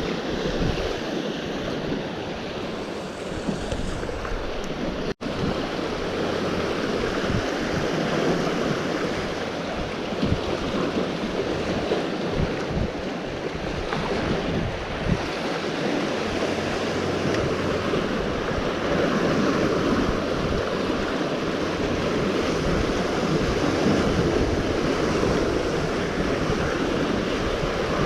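Sea waves washing steadily against a rocky shore, with wind buffeting the microphone. The sound cuts out for a split second about five seconds in.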